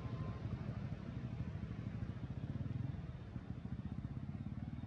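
An engine running steadily at idle: a low, even rumble.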